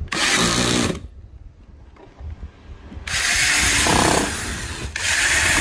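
Electric screwdriver driving screws through the metal base plate into the body of a Panasonic electric thermo pot. It runs in three bursts: about a second at the start, then two longer runs from about three seconds in.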